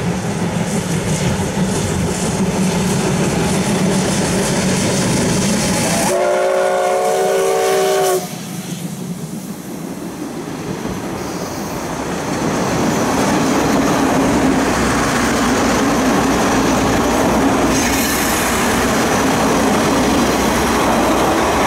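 Steam locomotive C58 239 running past at close range, blowing its steam whistle once for about two seconds, then its coaches rolling by on the rails with a steady rumble that grows louder near the middle.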